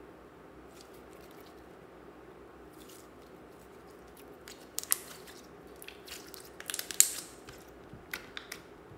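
Fingers pressing and poking soft slime in a plastic tub, making irregular sticky clicks and small popping squelches. The sounds start about halfway through, and the sharpest pop comes about three-quarters of the way in.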